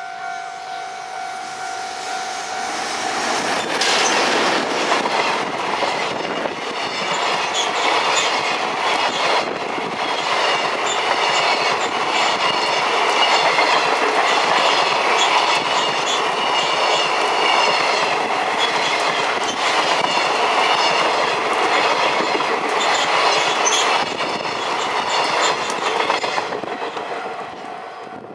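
JR Freight EH500 electric locomotive hauling a long container freight train past: a loud, steady rumble with the rhythmic clickety-clack of the wagons' wheels over the rail joints. It swells about three seconds in and fades near the end as the last wagons go by.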